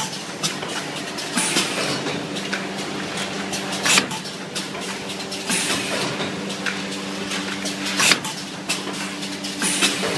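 Automatic blister card packaging machine running: a steady motor hum under continual mechanical clicking and rattling, with a loud clunk about every four seconds.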